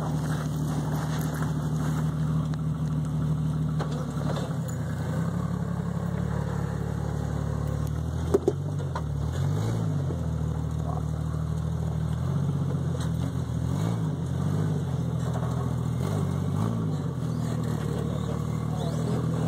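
Jeep Grand Cherokee ZJ engine running at low revs while rock crawling, the revs rising and falling several times in the second half as the driver works the throttle over the ledge. A single sharp knock about eight seconds in.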